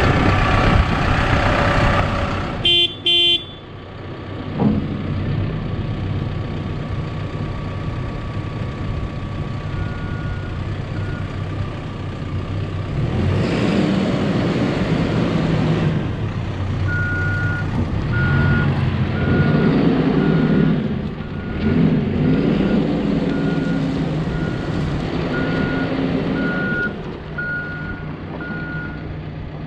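Cat 420F backhoe loader's diesel engine running, its pitch and load shifting as the machine works. Two short horn toots come about three seconds in. Its reversing alarm beeps a few times near the middle, then beeps steadily through the second half.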